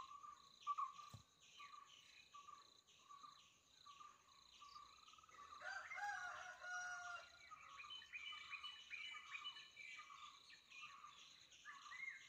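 Faint forest ambience: insects trill in a steady, evenly pulsing chorus. Bird calls join from about six seconds in.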